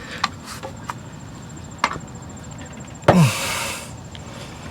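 A few light clicks and taps, then about three seconds in a man's short, loud breathy puff or sigh that starts with a falling voice and trails off in a hiss.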